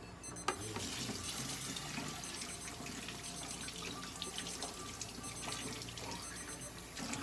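Tap water running steadily into a sink, likely for rinsing the feeding syringes. It comes on with a sharp click about half a second in.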